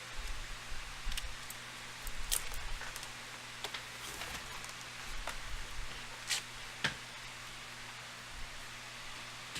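Steady background hiss and hum with scattered soft rustles and half a dozen sharp clicks, the loudest two close together in the second half: light handling noise at a table.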